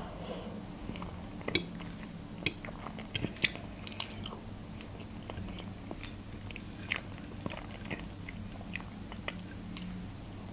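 Close-miked chewing of soft food, mashed potatoes and a meat cutlet, with many small wet mouth clicks scattered through it.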